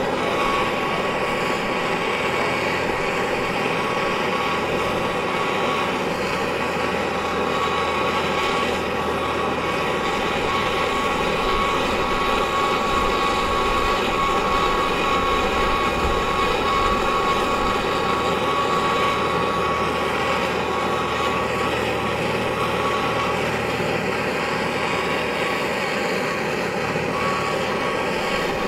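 Oxy-fuel torch flame hissing steadily as it heats a crucible of silver powder to melt it, with a thin steady high tone in the hiss.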